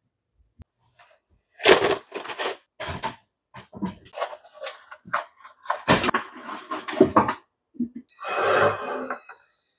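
Kitchen handling sounds: sharp knocks and clicks of cabinet doors and a folding step ladder, with scraping between them. Near the end comes a longer rustle as a plastic shelf liner is smoothed down on a cabinet shelf.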